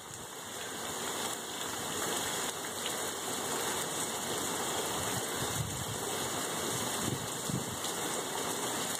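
Steady hiss of heavy rain falling on a flooded street.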